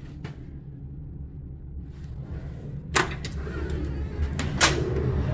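A door latch clicks about three seconds in and a second knock follows a moment later as a heavy glass door to the outside is pushed open. A low rumble from outside grows louder as it opens.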